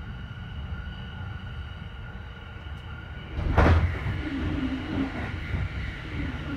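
Inside a moving E531-series commuter train: steady running rumble with the air conditioning on. About three and a half seconds in, a sudden loud rush as another train passes close alongside in the other direction, followed by the rumble of its cars going by.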